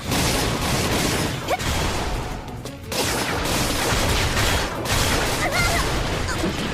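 Cartoon battle sound effects: a dense, continuous barrage of blasts and impacts, with music underneath.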